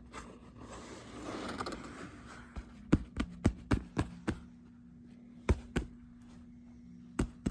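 Leather jacket being handled and turned over: a soft rustle, then a string of sharp clicks and taps, several in quick succession about three seconds in and a few more spaced out toward the end.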